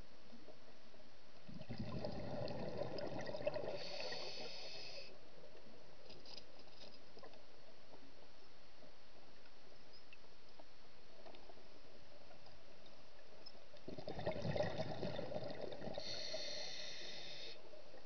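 Scuba diver breathing underwater through a regulator, twice about twelve seconds apart: each time a bubbling rush of exhaled air, then a short hissing draw of breath.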